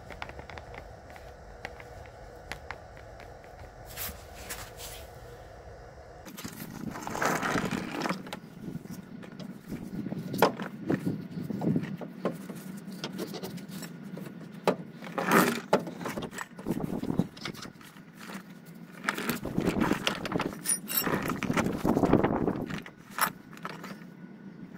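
Irregular metal scraping, clinking and knocking as a van's front driveshaft is worked at the hub from underneath, with several louder clatters spread through the second part. Before that there are a few quieter seconds with only a faint steady hum and light handling clicks.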